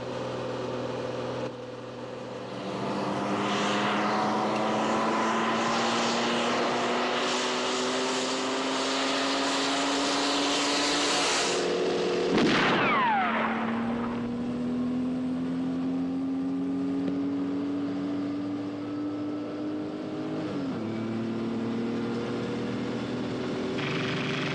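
Sports car engines running hard in a chase, their pitch climbing steadily as they accelerate. About halfway through comes a loud pass with the pitch dropping sharply. The engine then climbs again, with a brief dip in pitch like a gear change about three-quarters through.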